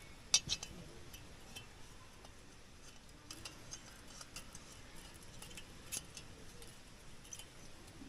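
Scattered light clicks and clinks of small hard objects being handled, with two sharp clicks about half a second in and a few more spread through.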